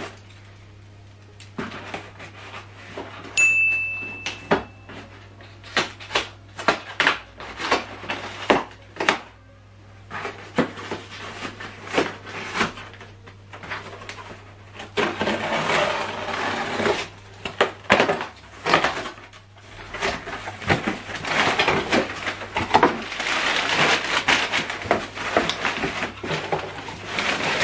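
A cardboard shipping box being opened by hand: scattered knocks, clicks and scrapes as the packing tape is cut. From about halfway through comes a dense rustle and crinkle as the flaps are pulled open and crumpled brown paper packing is pulled about.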